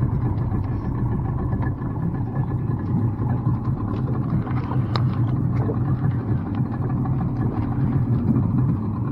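New Yamaha outboard motor running steadily at low trolling speed, an even low drone. A few light clicks sound over it, the clearest about five seconds in.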